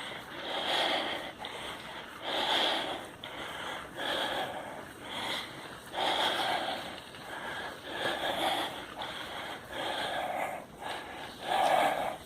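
A mountain biker breathing hard and rhythmically on a long uphill climb, about one loud breath a second, close to the mic.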